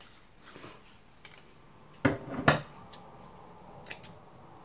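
Scissors being picked up and handled on a wooden craft desk, with a short clatter and rustle about two seconds in and a single light click of the blades a little before the end.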